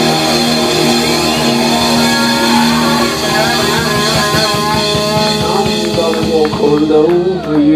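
Live rock band playing loud: electric guitars and a drum kit behind a singer on a microphone, the sung line sliding in pitch, with heavy drum hits near the end.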